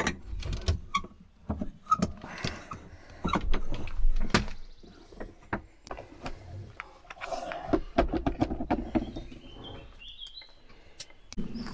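Footsteps and rustling of a person walking over the forest floor, with irregular sharp knocks and clicks. Near the end a bird gives a short run of high chirps.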